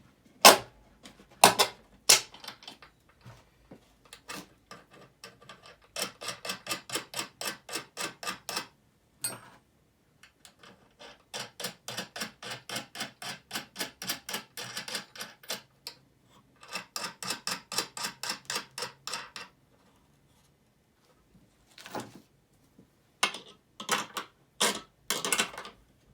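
Ratchet wrench clicking in three runs of a few seconds each, about six clicks a second, running nuts down onto a U-bolt through a metal plate. A few sharp metal knocks at the start, and more knocks and clatter near the end.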